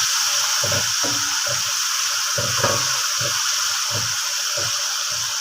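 Tomatoes, onion and garlic frying in oil in a pan, a steady sizzle as the tomatoes soften, with irregular low knocks.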